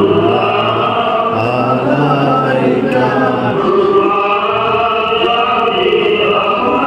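Voices chanting an Arabic devotional hymn together, in long drawn-out notes.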